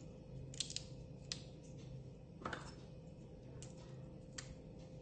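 Faint, scattered light clicks and taps of ingredients and dishes being handled on a kitchen counter, with one slightly fuller knock about halfway through, over a faint steady hum.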